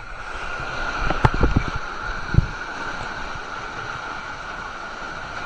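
Steady rush of flowing water on a water slide, with a few short knocks in the first half.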